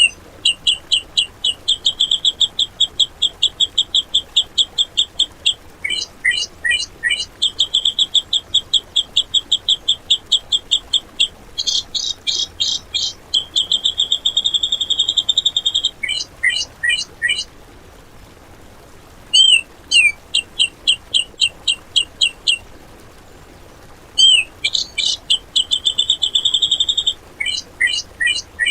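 Cucak jenggot (grey-cheeked bulbul) singing in long, rapid rattling bursts of sharp repeated notes, several seconds each. There are brief pauses between the bursts and one longer gap in the middle.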